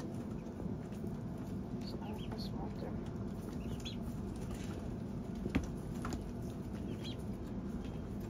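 Poultry in a coop giving faint, short, high calls every second or two over a steady low hum, with one sharp knock about five and a half seconds in.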